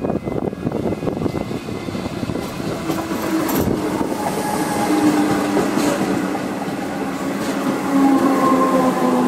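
Electric suburban train passing close by: a wheel-on-rail rumble that grows louder as the carriages go past, with a steady hum and a couple of sharp clacks.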